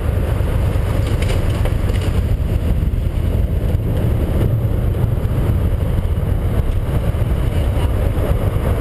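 1983 Yamaha XVZ12TK Venture's V4 engine running steadily while the motorcycle rides along a dirt trail: a constant low rumble.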